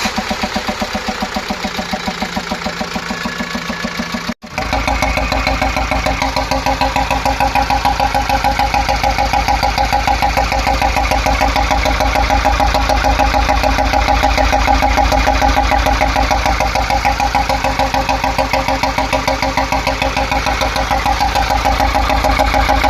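Mahindra Xylo diesel engine idling with a fast, rhythmic knocking tick: a failed hydraulic valve lifter is keeping an intake valve from closing properly, so the engine misfires. The sound briefly cuts out about four seconds in and comes back louder.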